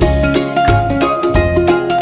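Background music: a bright, plucked-string tune with a steady beat.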